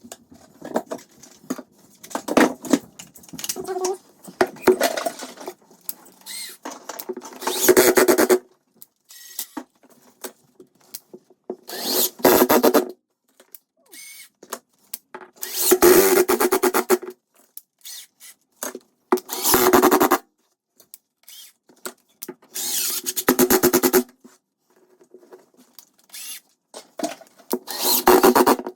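Power drill running in short bursts of about a second, six times, with clicks and rattling of handling in between.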